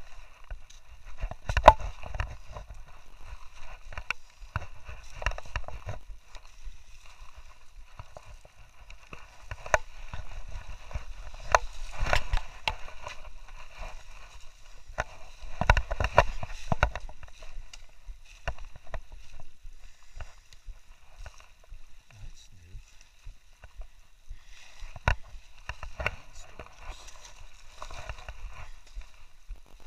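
Footsteps crunching on dry leaf litter, twigs and loose rock, in an uneven walking rhythm, with the heaviest steps about 2, 12 and 16 seconds in.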